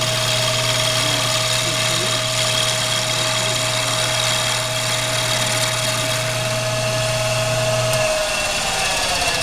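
Machinist lathe running steadily while a cutting tool turns a briar pipe blank, a high steady whine over a low hum and hiss. About eight seconds in the motor is switched off and the whine falls in pitch as the lathe spins down.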